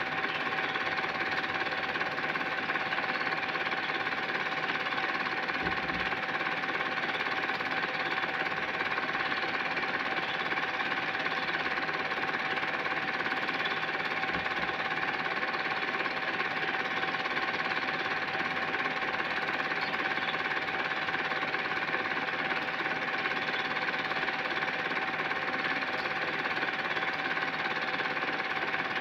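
Cine film projector running: a steady, rapid mechanical clatter from the film transport, with a constant tone under it.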